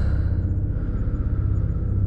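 Deep, steady drone of a horror film's underscore, with its weight in the bass.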